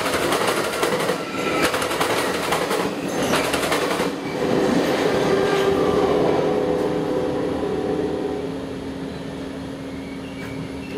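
The last cars of an Amtrak passenger train rolling past, wheels clicking rapidly over rail joints, then the sound fading as the train moves away, leaving a steady hum.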